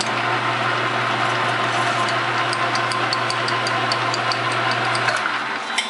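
Metal lathe running, its boring bar cutting the cylinder opening of an aluminium Honda motorcycle crankcase to enlarge it: a steady motor hum with regular ticks about three times a second. The motor hum stops about five seconds in and the machine winds down.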